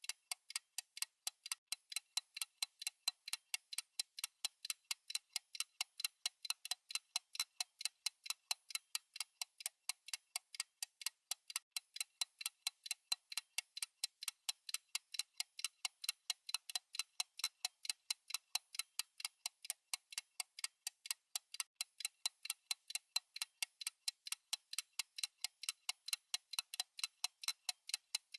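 Fast clock ticking: sharp, evenly spaced ticks, several a second, in an unbroken steady rhythm.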